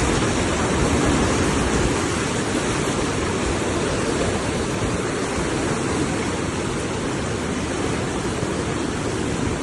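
A river in flood after heavy rain, its fast water rushing in a loud, steady roar.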